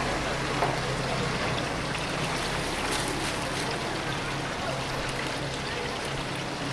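Chicken pieces frying in a deep fryer of hot oil, a steady sizzle with a low even hum underneath.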